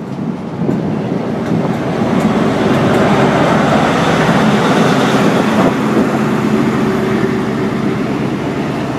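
InterCity 125 train departing, with the coaches rolling past and then Class 43 power car 43306 going by close, its MTU diesel engine running. The rumble swells about two seconds in, is loudest as the power car passes, and eases a little near the end.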